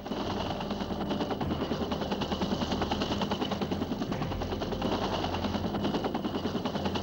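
Rapid, continuous gunfire from a helicopter gunship, in a fast even rhythm, over the steady noise of the helicopter's rotor and engine.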